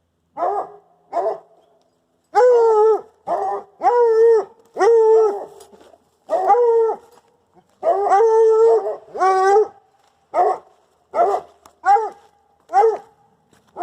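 A dog barking over and over, about fifteen barks: some short, others drawn out for most of a second.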